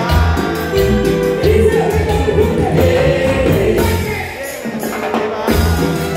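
Live band music with several voices singing together over drums and bass; the bass and drums drop out briefly about four seconds in, leaving mostly the voices, before coming back.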